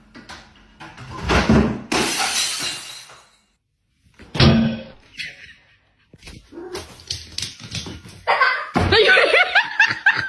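A couple of seconds of noise, then a short sharp sound, then people laughing and talking toward the end.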